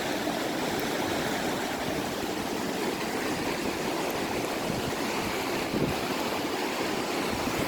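Mountain river rushing past, a steady, even roar of flowing water.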